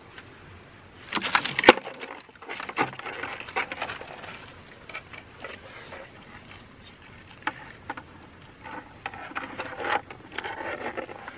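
Handling noise from a plastic-and-mesh crayfish trap and a plastic chilly bin: a burst of clattering knocks about a second in, then scattered clicks and rustling as crayfish go into the bin.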